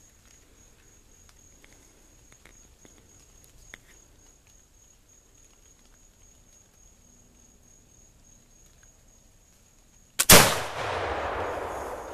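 A Lyman Deerstalker flintlock rifle fires once about ten seconds in: a single loud shot followed by a long rolling echo that fades over about two seconds.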